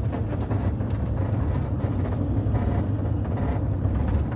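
Steady low rumble of a van driving: engine and road noise heard from inside the cab, with a few light clicks.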